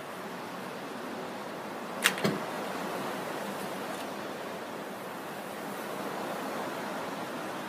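An American flatbow being shot: a sharp snap of the string on release about two seconds in, then a duller knock about a quarter of a second later as the arrow hits. A steady hiss underneath.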